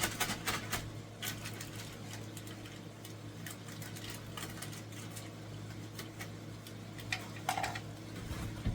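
Scattered light ticks and pops from food cooking in a skillet on the stove, over a steady low hum.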